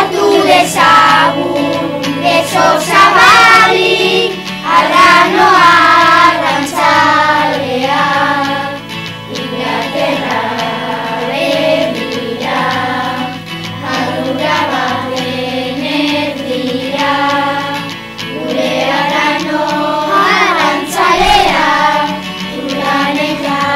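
A group of children singing a song together over instrumental backing.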